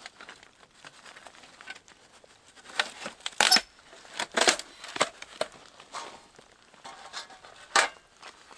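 Irregular crinkling and crunching handling sounds: a scatter of short sharp rustles with quiet gaps between them, the loudest a little after three seconds, around four and a half seconds and near the end.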